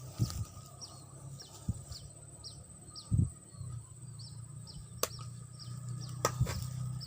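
A bird repeating a short, high, downward chirp about twice a second, fading out about halfway through. A few dull low thumps and two sharp clicks near the end sound over a steady low hum.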